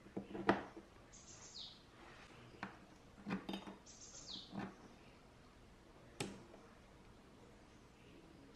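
Light clicks and knocks of plugs being pushed into a subwoofer's plate amplifier panel: the mains power cord, then RCA plugs into the line inputs. A bird chirps twice in the background, each a short call gliding downward.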